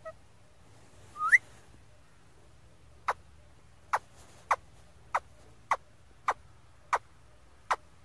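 A rose-ringed (Indian ringneck) parakeet calling: one quick rising whistle, then a run of eight short, sharp chirps at an even pace of about one every two-thirds of a second.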